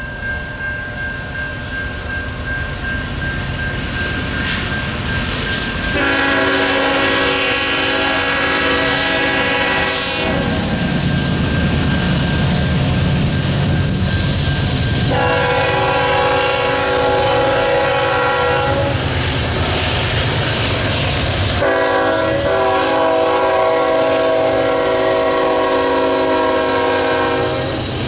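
Nathan K5HL five-chime air horn on a CSX GE ET44AH locomotive sounding three long blasts for a grade crossing. Under it is the rumble of the three diesel locomotives hauling a loaded coal train, which grows louder as they approach.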